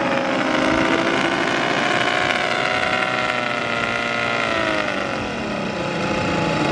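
RC model aeroplane engine running, a steady pitched drone with several pitches whose pitch drifts and then drops noticeably about five seconds in.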